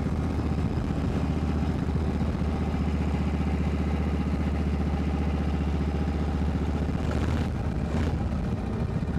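1978 Harley-Davidson Shovelhead V-twin engine running steadily under way as the chopper cruises, its firing pulses even, breathing through a freshly fitted air cleaner that is working well. A couple of brief rushes of noise come near the end.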